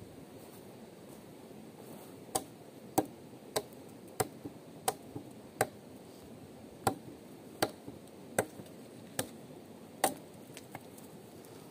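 About a dozen sharp chopping strikes at an uneven pace, roughly one a second, starting about two seconds in and stopping near the end.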